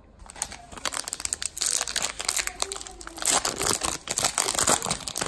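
Plastic wrapper of a baseball card pack crinkling and tearing as the pack is torn open and the wrapper crumpled, a dense crackle that starts suddenly just after the start.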